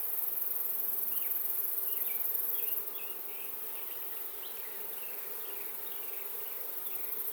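Honeybees humming steadily around an open hive as its frames are inspected, with a high hiss that drops away about three seconds in and faint short chirps over the top.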